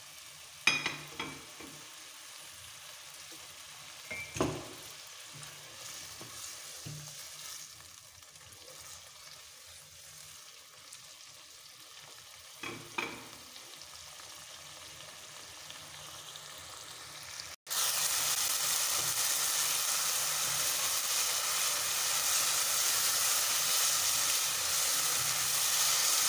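Chicken pieces cooking in butter-garlic sauce in a nonstick pot: a quiet simmer with a few sharp knocks at first. About 17 seconds in, after a cut, comes a much louder steady sizzle as the sauce cooks down and the chicken is stirred with a spatula.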